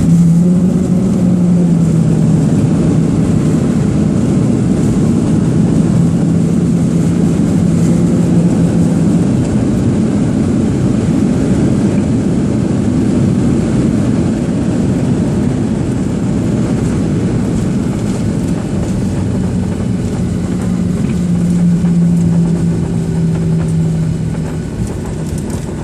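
Jet airliner cabin noise during landing: a loud, steady low rumble of engines and airflow, with an engine hum that drops in pitch about a second in, rises again near the end, then drops once more.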